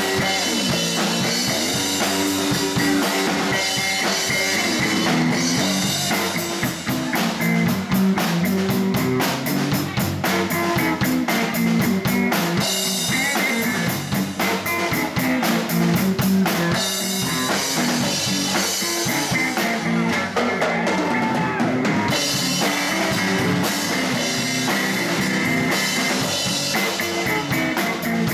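Live blues band playing an instrumental passage: electric bass guitar, electric guitar and a Ludwig drum kit keeping a steady beat on cymbals and drums.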